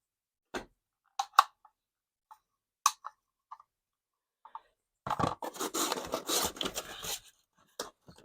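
Hands handling plastic vacuum accessories and packaging: a few sharp plastic clicks and taps, then about two seconds of scraping and rustling, and a last click near the end.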